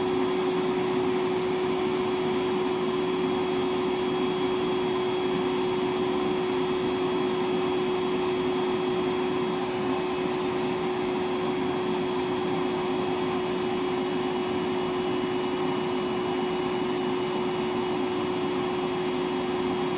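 Milwaukee M12 1.6-gallon wet/dry shop vacuum (0960-20) running steadily: an even whoosh of airflow with a strong steady motor hum, unchanged in pitch and level.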